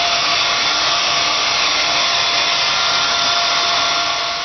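Handheld hair dryer running: a steady blast of air with a thin, even whine, easing off near the end.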